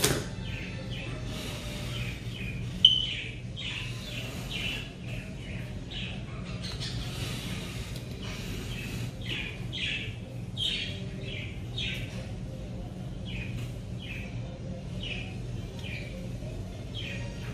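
Birds chirping in short, falling notes again and again, one loud chirp about three seconds in, over a low steady hum.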